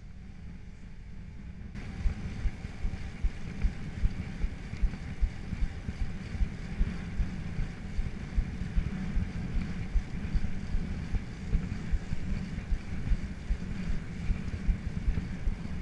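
Wind buffeting the microphone of a handlebar-mounted camera on a moving mountain bike, a steady rumble with low thumps about twice a second. It gets louder about two seconds in.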